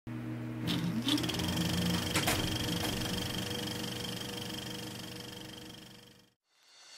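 Synthetic intro sound effect: a steady layered hum with a short rising sweep about a second in and a few sharp clicks, fading out and going silent about six seconds in.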